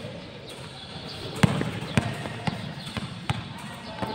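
A basketball bouncing on a hard court floor: about five dribbles at uneven spacing, the loudest about a second and a half in.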